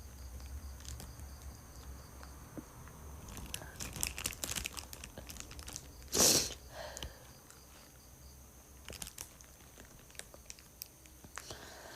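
A woman coughs once, short and loud, about six seconds in, among scattered small clicks.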